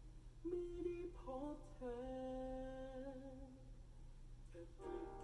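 A soft voice humming a slow melody in a few long held notes, the longest held for about a second near the middle, fading out briefly before the next phrase starts near the end.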